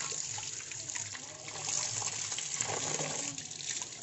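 Water jetting from a garden hose into a plastic koi-pond filter chamber, splashing steadily on the filter mat and chamber walls as the chamber is rinsed clean.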